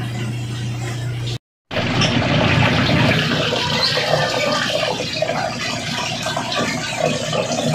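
Aquarium water running and splashing, busy and irregular. Before it, a steady low hum that cuts out about one and a half seconds in.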